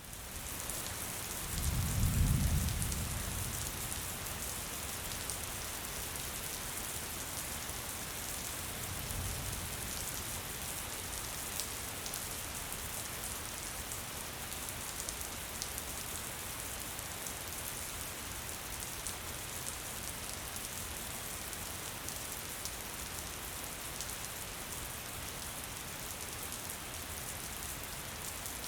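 Steady gentle rain, an even hiss with fine drop patter. A low rumble swells about two seconds in, and a fainter one comes near nine seconds.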